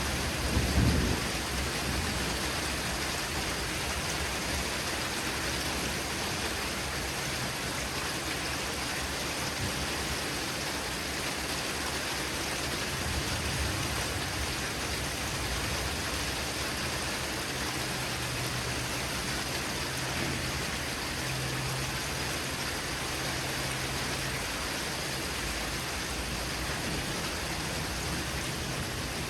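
Steady heavy rain during a thunderstorm, with a brief louder low thump about a second in.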